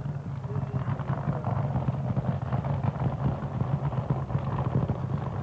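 Nitro-burning supercharged V8 of a Chevrolet Monza funny car idling at low revs after its burnout, a steady rapid, uneven rumble.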